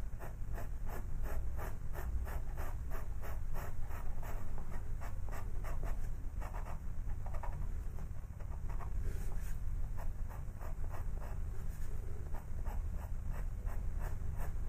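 White pastel pencil scratching over textured pastel paper in quick short strokes, about three or four a second.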